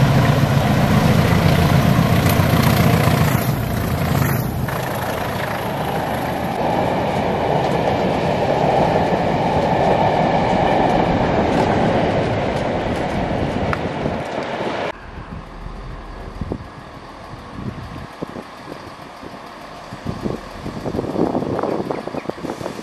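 A diesel-hauled passenger train passes close by. At first the engines of the leading pair of Class 20 diesel locomotives are loud, then the coaches roll past with steady wheel-on-rail rumble. About 15 s in the sound cuts abruptly to a quieter station background with scattered knocks.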